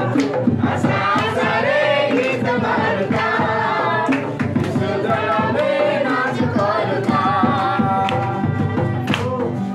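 A group of men and women singing a Christmas carol together, with hand claps throughout.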